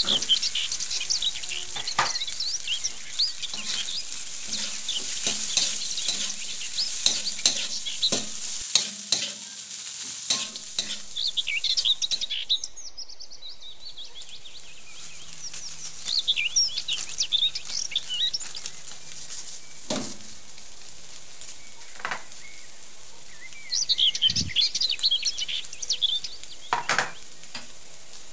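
Rice being stir-fried in a metal wok: a spatula scrapes and turns it in bursts over a faint sizzle of hot oil, with a few sharp knocks of the spatula against the wok. There are quieter pauses between the bursts of stirring.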